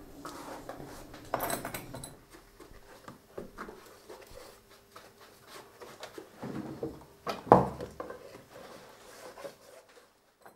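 Red leather shoes being handled by hand: irregular rubbing, rustling and small taps of leather, with a louder knock about 7.5 seconds in.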